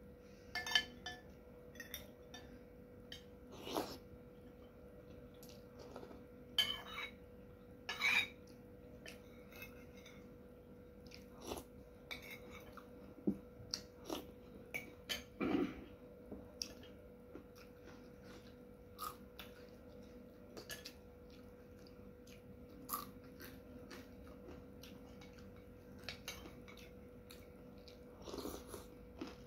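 Eating with a metal spoon and fork from a white soup plate: scattered clinks and scrapes of the cutlery on the plate, mixed with chewing and mouth sounds, over a faint steady hum.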